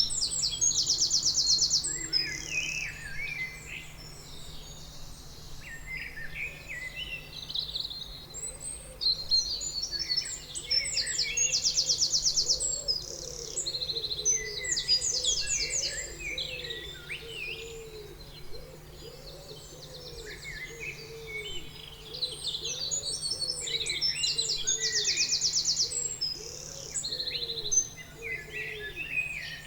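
Birds singing: a chorus of high chirps and phrases, with fast trills repeating every few seconds.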